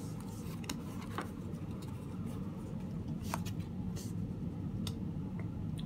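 Board game cards being handled and sorted by hand: a few soft card clicks and slides over a steady low hum.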